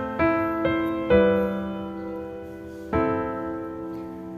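Soft background piano music: a few sustained chords and single notes struck about once a second, each fading slowly.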